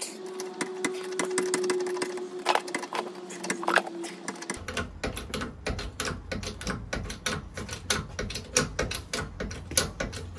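A rapid, even run of light metallic clicks, several a second, from hand tools being worked at a bottle jack under a caravan's axle. A low steady hum comes in about halfway through.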